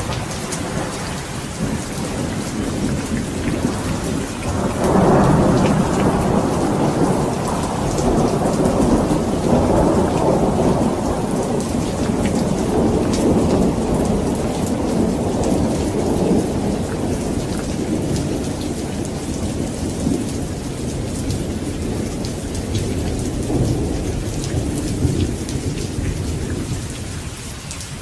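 Steady heavy rain falling on surfaces, with a long thunder rumble that swells suddenly about five seconds in and slowly dies away over the next twenty seconds.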